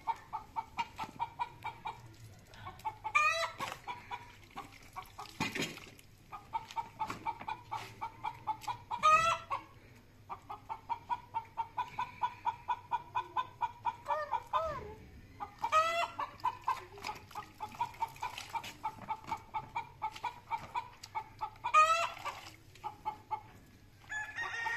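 Chickens clucking in long runs of rapid clucks, about five a second, each run breaking into a louder, higher cackling call, four times.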